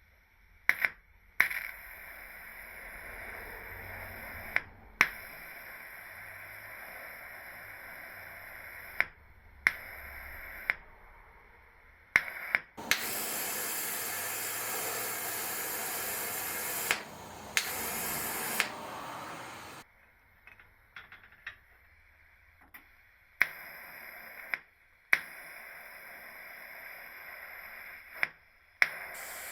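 TIG welding arc melting gold in a graphite crucible: a steady hiss that is struck and cut off several times, each start and stop marked by a sharp click. The hiss is loudest and brightest for several seconds in the middle.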